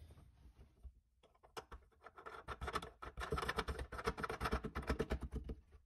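Sink sprayer's mounting nut being threaded on and tightened from under the sink by hand: a quick, dense run of scratching and clicking that builds up about halfway through.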